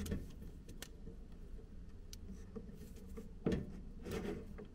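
Faint clicks and handling rustle of a wire stripper working the insulation off the thin wires of a cable loom, with a brief louder rustle about three and a half seconds in.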